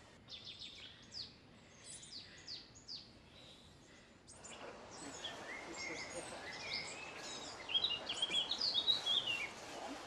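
Wild songbirds singing in woodland: a run of short, falling chirps in the first few seconds, then a louder warbling song over a steady hiss from about four seconds in, strongest near the end.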